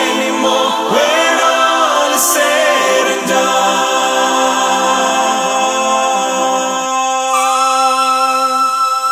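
Music: layered voices singing a cappella, like a choir, with no instruments. About seven seconds in the singing settles into long held notes and a higher sustained tone comes in.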